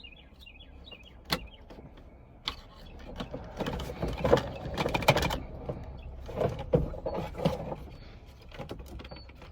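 Clicks, knocks and scraping of tractor cab console parts being worked loose by hand to get at the shifter of a John Deere 8420. The handling is busiest from about three to five seconds in and again around seven.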